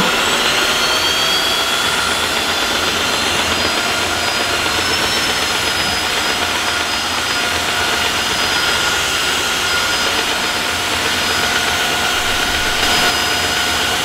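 Tineco Floor One S3 cordless wet-dry floor washer running in auto mode, a steady motor whir with a high whine. Its pitch shifts slightly partway through as the dirt sensor raises the suction over a dirty patch.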